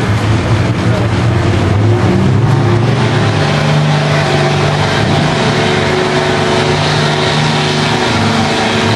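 Street-class diesel pickup truck engine running hard under load on the pull, its drone stepping up in pitch about two seconds in and then holding steady.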